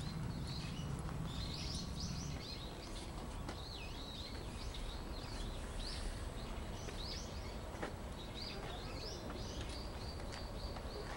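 Small birds chirping again and again in short high chirps over a steady background hiss. A low hum underneath fades out about two seconds in.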